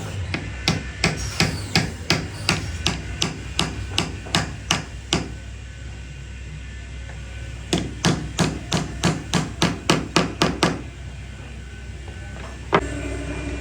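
Hammer blows in a steady run of about three a second for some five seconds, then a pause, then a faster run of about four a second for three seconds, and a single blow near the end.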